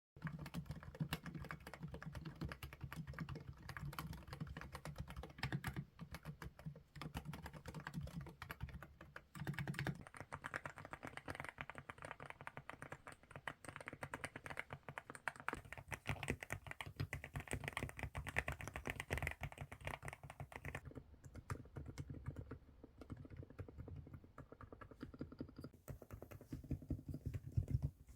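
Typing on a mechanical keyboard: rapid, continuous key clicks. The character of the clicking changes a few times, about ten, sixteen, twenty-one and twenty-six seconds in.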